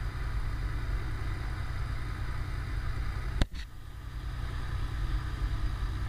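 Cessna 210 Centurion's piston engine idling steadily on the ground, heard from inside the cabin. There is one sharp click about three and a half seconds in, after which the drone is briefly a little quieter.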